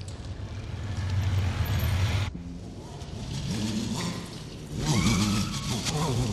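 Kawasaki KZ1000P police motorcycle's air-cooled inline-four engine running, a steady low drone that cuts off suddenly a little over two seconds in. It then revs up and down in repeated swells as the bike climbs a flight of stairs.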